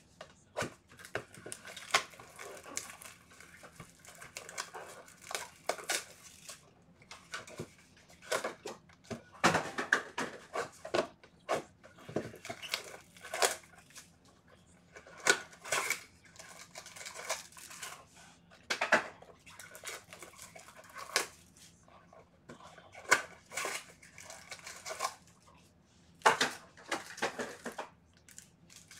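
A cardboard trading-card hobby box being opened and its foil-wrapped packs handled: irregular tearing, crinkling and rustling with sharp crackles and short pauses between them.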